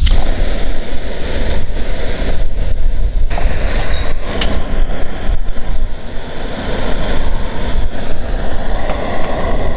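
Gas-canister camp stove burner catching and then hissing steadily, over heavy wind rumble on the microphone. A few light metal clinks around the middle as a folding metal firebox windscreen is set around the stove.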